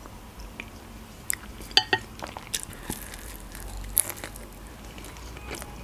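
Close-miked eating: chewing and small mouth clicks after a spoonful of lentil soup, then a crisp bite into a slice of pizza about four seconds in.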